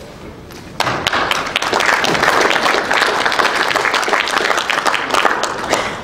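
Audience applauding, starting suddenly about a second in and dying away near the end.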